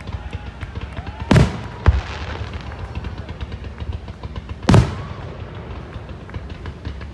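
Fireworks display finale: aerial shells bursting with deep booms, two big ones about a second and a half in and near five seconds, and a sharper bang just after the first, over continual crackling and low rumble.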